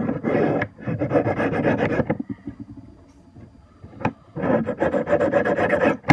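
Knife blade stroked across a Smith's TRI-6 Arkansas TRI-HONE sharpening stone: three long scraping strokes, with a pause and a light click before the last one. A sharp click near the end.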